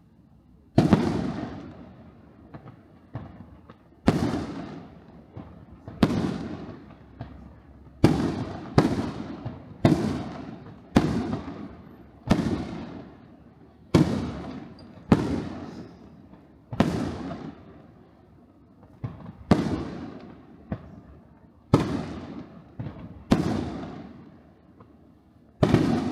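Aerial firework shells bursting one after another, a loud bang every second or two, each trailing off, with smaller crackles in between.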